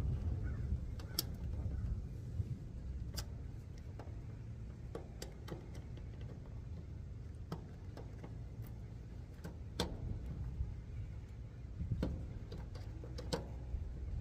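Irregular sharp clicks and taps, a dozen or so spread unevenly through, over a steady low rumble.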